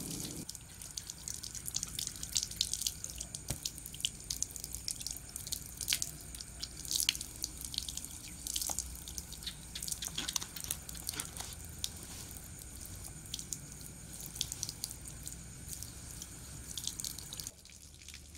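Water running from an outdoor tap and splashing as a man washes his hands and face under it for ablution, with many small splashes and drips. The water sound cuts off near the end.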